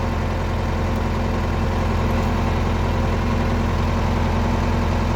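Case 885XL tractor's diesel engine running steadily, a constant low hum heard from inside the cab.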